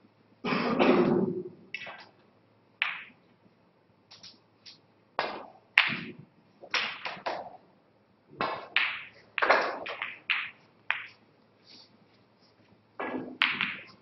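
Scattered knocks and taps, with a louder, longer dull knock about a second in. In the second half, snooker balls click as the cue ball is struck and a red is potted.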